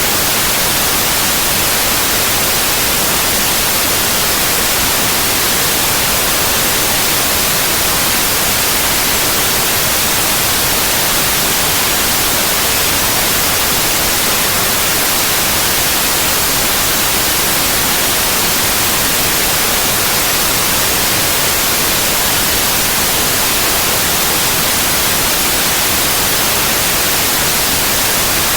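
Synthetic white noise: a steady, even hiss across all pitches, loud and unchanging.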